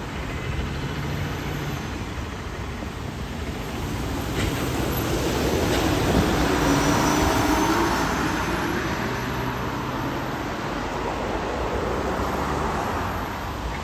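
Solaris Urbino articulated city bus driving past directly below, its running noise building to loudest about six seconds in and then easing off, over steady wet-road traffic.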